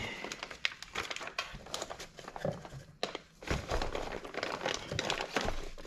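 Irregular crinkling and light clicking of parts and wrapping being handled by hand.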